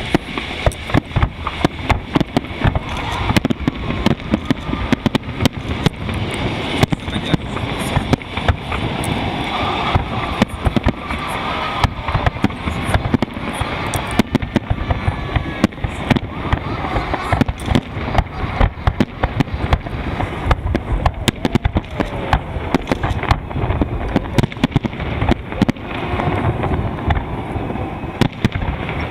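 Fireworks salute: a dense, rapid series of bangs from bursting shells that keeps on throughout, with crowd voices underneath.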